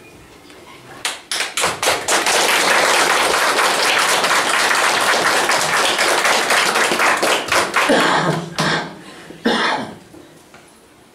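Audience applauding: a few scattered claps build within a second into steady applause, which thins out near the end with a last short burst of clapping.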